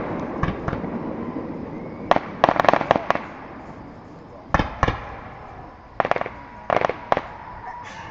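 Fireworks display going off: sharp bangs from aerial shells bursting, with a quick rattling cluster of reports about two seconds in, then single bangs and pairs every second or so, each trailing a short echo.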